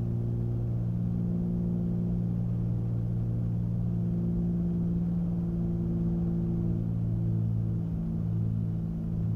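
Cessna 310's twin piston engines droning steadily inside the cockpit on final approach, a low even hum with a slight waver in pitch near the end.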